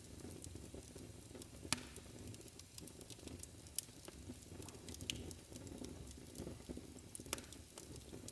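Very faint crackle and hiss with scattered sharp clicks, four of them louder, the loudest about two seconds in.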